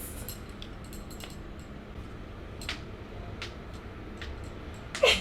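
Finger knuckles being cracked, a scatter of faint small clicks and pops, the clearest about two and a half seconds in.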